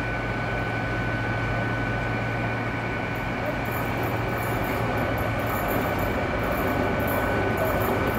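Class 43 High Speed Train power car's diesel engine running as the train rolls slowly into the platform, with a low hum and a steady high whine. Faint high hissing flickers in from about three seconds in.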